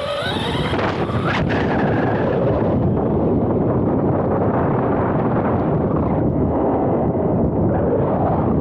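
Team Corally Sketer RC monster truck heard from a camera mounted on it: a loud, steady rumbling rush of its tyres on coarse asphalt, with wind on the microphone. In the first couple of seconds the electric motor's whine rises and falls with the throttle.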